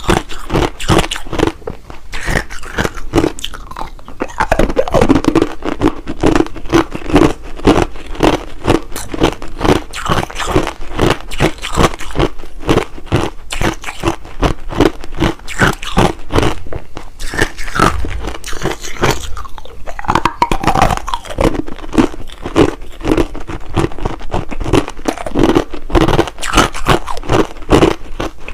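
Close-up crunching of clear hard crushed ice being bitten and chewed, with rapid, continuous crunches several times a second.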